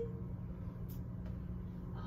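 Quiet room tone: a steady low hum, with one faint tick about a second in.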